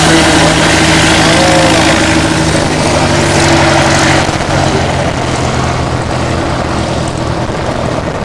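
A steady engine drone under heavy wind noise on the microphone; the wind eases about four seconds in.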